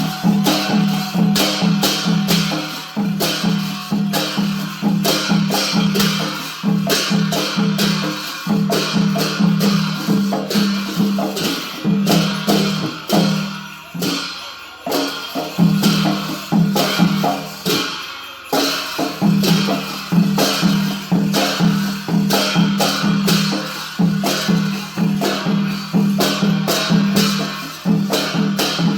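Live drum-and-cymbal percussion: a low drum beating in a fast, driving rhythm under rapid crashing cymbal strikes, with two brief breaks about halfway through.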